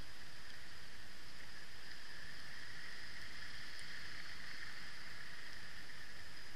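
Steady hiss of wind and road noise from a camera mounted on a slowly moving motorcycle, even and unchanging, with no clear engine note standing out.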